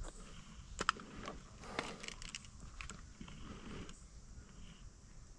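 Two sharp clicks, one a little under a second in and another near two seconds in, among short patches of faint rustling.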